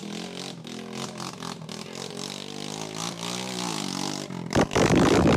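Trail motorcycle engine running, its pitch slowly rising and falling as it is throttled, then a loud rough burst of noise near the end.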